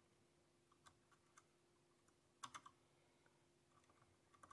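Faint small clicks of metal tweezers and small batteries against the hard plastic of the toy figure's head: a short cluster of clicks about two and a half seconds in, with a lighter tick before it and another near the end.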